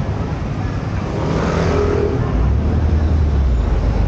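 City street traffic: a motor vehicle passing on the road, with a steady low rumble setting in a little past halfway.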